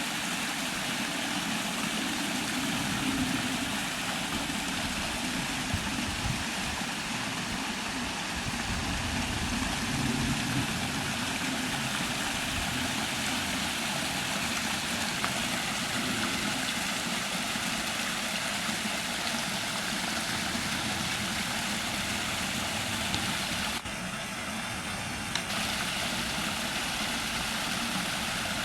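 Small mountain waterfall: a steady rush of falling and splashing water, briefly duller about 24 seconds in.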